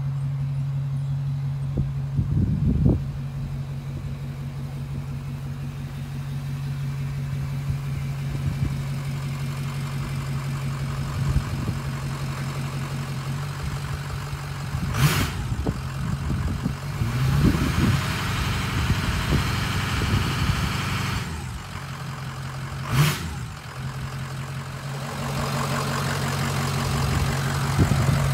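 A 6.0 Powerstroke V8 turbo-diesel, swapped into a 1986 Ford bullnose truck, running as the truck is driven around the yard. A steady low hum holds throughout. The engine noise swells and falls as the truck passes midway, and there are two sharp knocks, one in the middle and one later.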